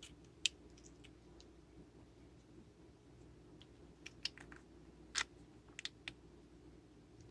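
Scattered sharp clicks and taps of small flashlight parts being handled during reassembly: one near the start, a cluster of several about four to six seconds in, with a faint steady hum underneath.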